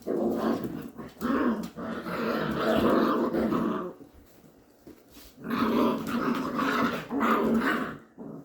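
Goldendoodles growling in rough play with puppies, in two bouts with a short lull between them.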